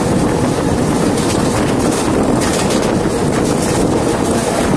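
Wind buffeting the phone's microphone at the open doorway of a moving Mumbai suburban local train, over the steady running noise of the train on its rails.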